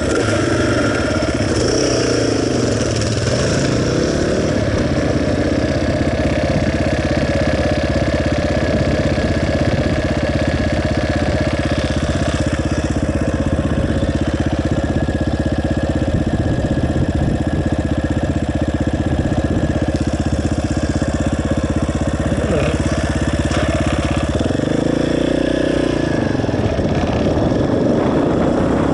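Motorcycle engine running under way at a mostly steady pitch. The revs rise and fall near the start, and again as the pitch drops and climbs back about 25 seconds in.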